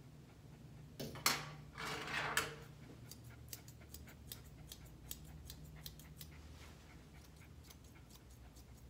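Thinning shears snipping through a dog's coat: a run of crisp, irregular snips, a few a second, starting about three seconds in and thinning out toward the end. About a second in there are two short louder rustling noises.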